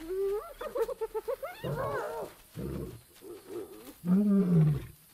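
Spotted hyenas giggling and yelping over a kill with quick, up-and-down calls, then a male lion roaring. The roar builds through several calls to a loud, deep one about four seconds in.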